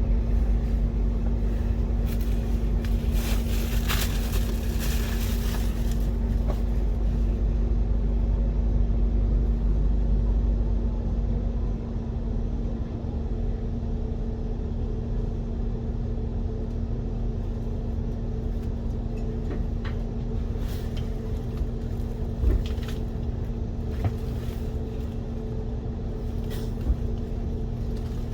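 Steady low rumble of a moving vehicle with a constant droning hum; the deepest rumble eases off about twelve seconds in.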